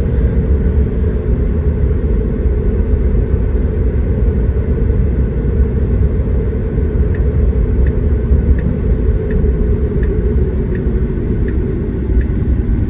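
Steady road and tyre rumble heard inside a Tesla electric car's cabin while driving. From about halfway in, a faint regular ticking comes about once every 0.7 seconds: the turn signal indicator.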